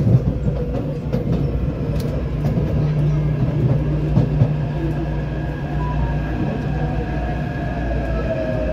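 Taipei Metro C381 train heard from inside the car, slowing into a station: a steady running rumble and hum with a few sharp clicks from the wheels. Near the end a motor whine slides down in pitch as the train brakes.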